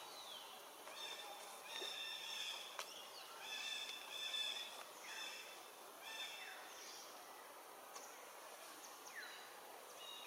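Repeated short, high-pitched animal calls, roughly one a second, a few of them sliding quickly downward in pitch, over a steady outdoor background.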